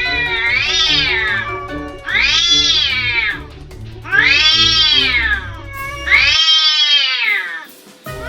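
Cat caterwauling: four long yowls, each rising then falling in pitch. This is the threat yowl of a cat squaring up to another before a fight.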